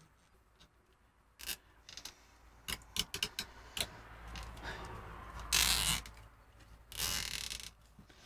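Nylon cable tie being worked into place and pulled tight around a rubber timing belt on a 3D printer's carriage: scattered small clicks and handling sounds, then two short zipping rasps, one just past the middle and one near the end.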